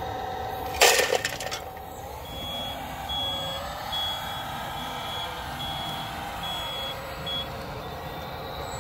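1/14-scale RC hydraulic wheel loader (John Deere 870K model) working, its electric drive and hydraulic pump whining and changing pitch as it moves, while its reversing alarm beeps seven times at an even pace. A loud burst of noise comes about a second in.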